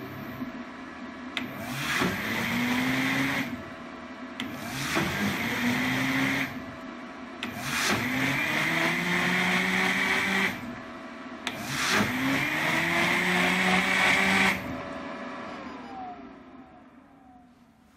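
Bugatti Vento blender running a pulse program with water churning in the jar: four bursts of motor noise a few seconds long, each rising in pitch as the motor spins up, with short pauses between. The last two bursts are longer, and after the last one the motor slows with a falling whine.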